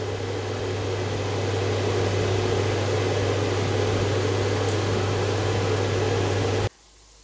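A kitchen appliance running: a steady low electrical hum under an even rush of fan noise, which cuts off abruptly near the end.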